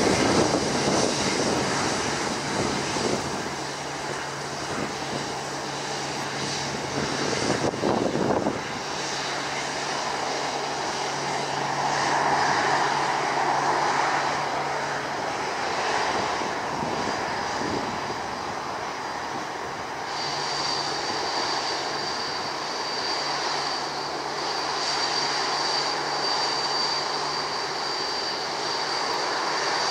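British Airways Boeing 787-9 with Rolls-Royce Trent 1000 engines at low taxi thrust as the airliner rolls along the taxiway: a steady jet hum. A thin, high whine comes in about twenty seconds in and holds.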